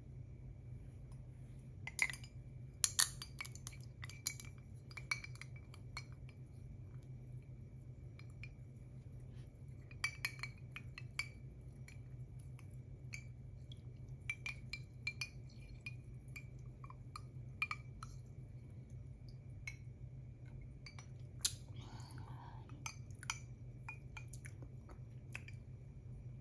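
Quiet, scattered clinks and taps of a ceramic coffee cup being picked up and handled, over a faint steady hum, with a short sip late on.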